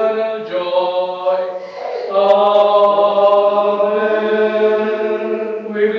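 Liturgical plainchant sung on one steady reciting note, with a short break for breath about two seconds in.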